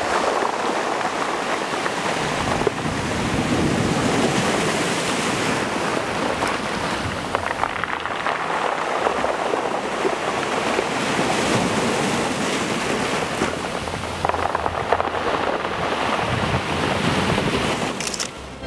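Small waves breaking and washing over a beach of round pebbles, a steady rush of surf that swells and eases every few seconds. The surf drops away about half a second before the end.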